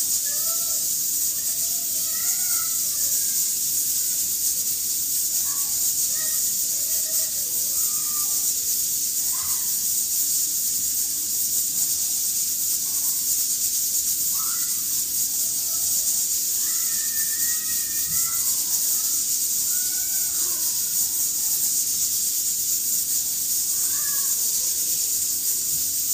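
Steady high-pitched hiss throughout, with faint, distant voices now and then.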